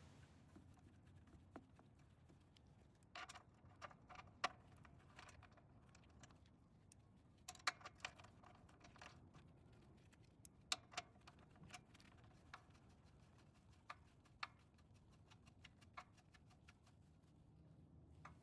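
Faint metallic clicks and taps of a wrench on the nut of the snowblower's stop bolt as it is tightened. They come in small clusters every few seconds, with scattered single ticks toward the end.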